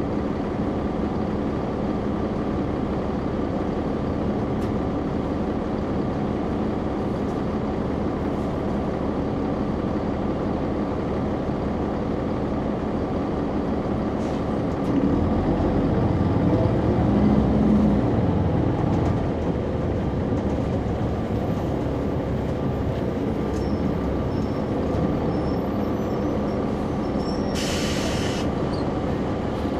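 Caterpillar C9 ACERT diesel engine of a 2004 Neoplan AN459 articulated transit bus, heard inside the cabin from the back seats, running steadily. It grows louder for a few seconds about halfway through, and a short hiss of released compressed air comes near the end.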